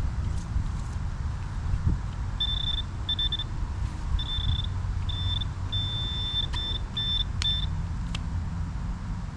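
Metal detector beeping at one high pitch in a run of short and longer bursts, starting a couple of seconds in, signalling metal in the hole. A few sharp clicks near the end, over a steady low rumble.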